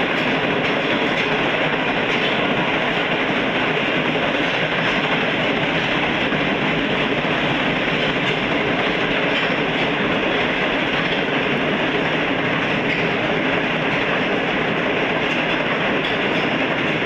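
Green Line Express passenger train running at speed: a steady, loud rush of wheels on rails with a light clickety-clack of wheels over rail joints.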